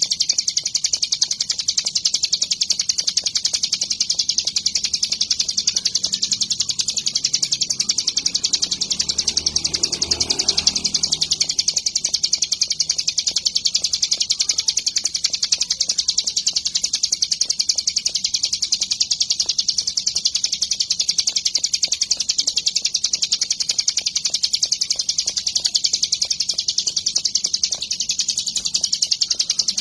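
Ciblek gunung (a mountain prinia) singing a continuous, very rapid high-pitched chattering song without pause. A faint low rumble rises and fades about nine to eleven seconds in.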